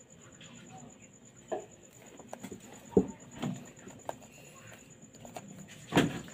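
Scattered soft knocks and clicks of a plastic phone back cover and a glue tube being handled while adhesive is run along the cover's edge. The loudest knock comes about three seconds in and another near the end.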